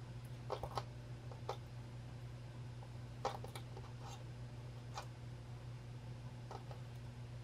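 Faint, scattered soft clicks of fingers handling braided fishing line while wrapping a knot, over a steady low hum.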